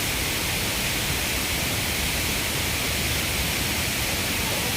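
Waterfall rushing: a steady, even roar of falling water with a strong hiss.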